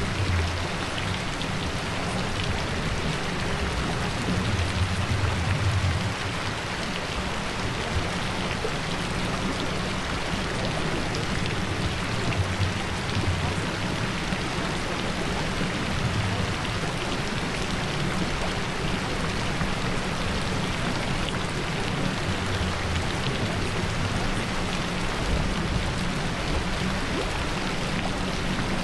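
Steady rain: an even, dense patter of drops, with a low rumble swelling now and then.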